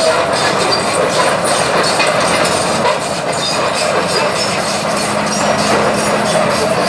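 Komatsu crawler excavator travelling on its steel tracks: a steady clanking, rattling of the track links with the diesel engine running underneath.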